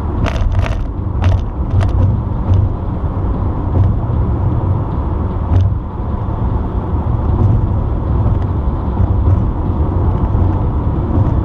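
Car driving at highway speed, heard from inside the cabin: a steady low rumble of road and engine noise, with a few brief clicks in the first two seconds.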